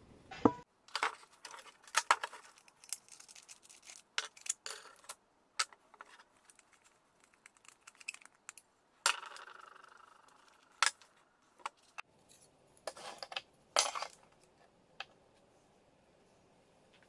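Irregular metal clicks, clinks and knocks as a Metabo angle grinder is taken apart by hand and its guard, cutting disc, flange nut and side handle are set down on a wooden table. One piece about nine seconds in rings briefly after it lands.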